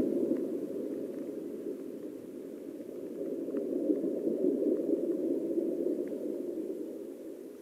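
Muffled underwater water noise picked up by a submerged camera: a dull, steady rush with a few faint ticks. It swells a little in the middle and fades near the end.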